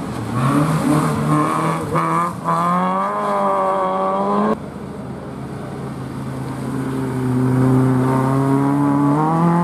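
Rally car engines under hard throttle as the cars come past: a high engine note climbing steadily, cut off abruptly about halfway, then a second car's engine building and rising in pitch toward the end.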